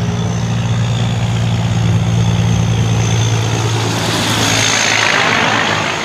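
Semi-truck with a box trailer driving past, its diesel engine a steady low drone. Tyre and road noise swell as the trailer goes by, about four seconds in.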